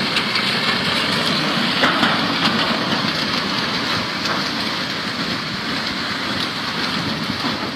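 A flash-flood mud and debris flow moving down a dry riverbed, a steady rushing rumble with scattered small clicks and cracks.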